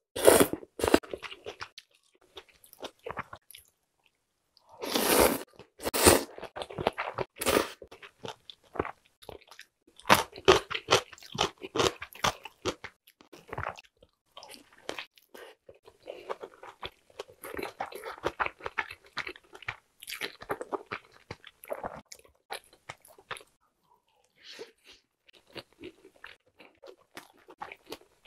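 Mouth sounds of eating: thin wheat noodles in broth slurped up in loud bursts, then a large steamed meat dumpling bitten into and chewed with the mouth full. The chewing is softer and steadier in the second half, with a short pause a few seconds before the end.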